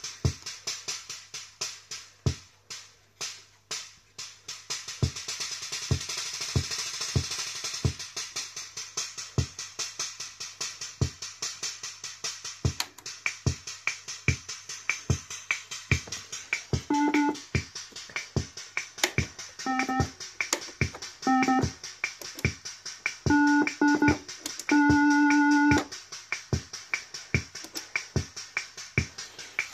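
The EKO Tivoli 18A electronic organ's built-in rhythm unit is playing a steady drum-machine beat, working again after restoration, with a hissing cymbal-like sound louder for a few seconds early on. From about halfway in, short organ chords are played over the beat, and the longest is held near the end.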